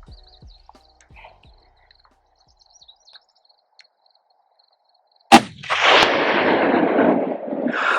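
A single hunting rifle shot about five seconds in, sharp and loud, followed by a couple of seconds of loud rushing noise that dies away.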